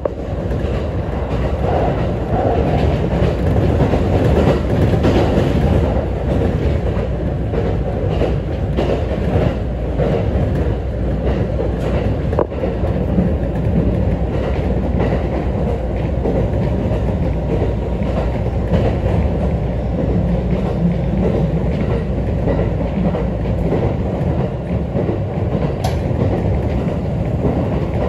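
Inside an ET127 series electric multiple-unit train running at speed: the steady rumble of steel wheels on the rails and the car's running noise.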